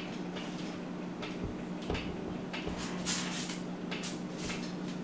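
Light, irregular scrapes and taps from a small clear vial and a thin white tube being handled over a deli cup of sphagnum moss, as a tiny sling is nudged out of the vial. A steady low hum runs underneath.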